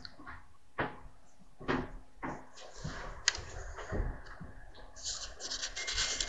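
Rustling and light knocks of hands handling things on a tabletop, with one sharp click about three seconds in.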